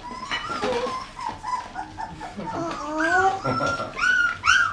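Labrador puppies whimpering and yipping, short high cries that each rise and drop, coming thick and fast near the end.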